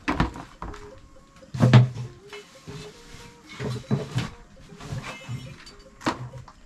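Knocks and scrapes of a wooden-handled tool and a plastic basin as chicken droppings are scraped up off an earthen floor, in uneven strokes with the loudest a little under two seconds in.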